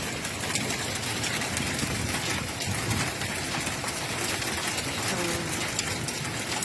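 Heavy storm downpour pounding on surfaces: a steady hiss, thick with sharp ticks of individual impacts.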